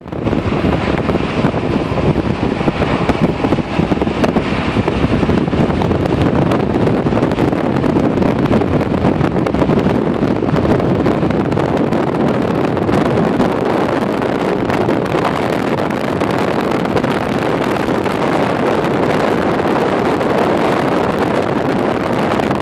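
Steady, loud wind blowing on the microphone, mixed with the road and engine noise of a moving car.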